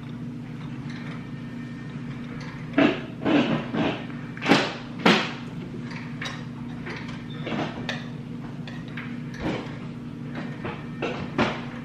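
Close-miked eating sounds of black bean noodles and crispy sweet-and-sour pork: a run of sharp crunches, slurps and clicks about three to five seconds in, then a few scattered ones, over a steady low hum.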